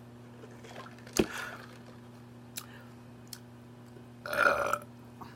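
A woman burps once, loudly, about four seconds in: a short belch of about half a second. About a second in there is a sharp mouth click, and there are a couple of faint ticks between the two.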